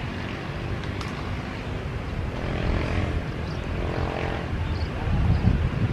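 Airliner engines running at low power as the aircraft taxis after landing: a steady low rumble with a faint engine whine that swells about halfway through.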